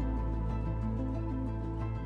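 Calm background music: sustained notes over a held low bass, changing slowly, with no beat.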